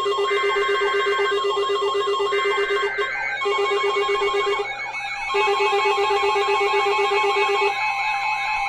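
Several electronic alert tones sounding at once: a fast warbling tone, a low beep pulsing on and off in stretches, and a steady tone that drops a little in pitch about three seconds in. These are typical of weather alert radio receivers and Emergency Alert System tones going off for a new severe thunderstorm warning.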